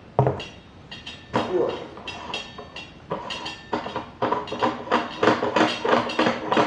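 Stainless steel threaded modules of a MIG Mini hookah stem being unscrewed by hand. A knock at the start, then metal-on-metal rasping and clicking of the long threads in quick repeated strokes, louder over the last few seconds.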